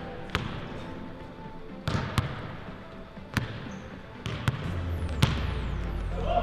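A basketball bouncing on a gym floor: sharp, irregularly spaced bounces over room noise. A low steady hum comes in about two-thirds of the way through.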